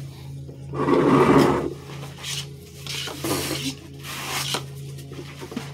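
Clear plastic parts bag being pulled and torn open by hand, crinkling: one long loud stretch about a second in, then a few shorter rustles.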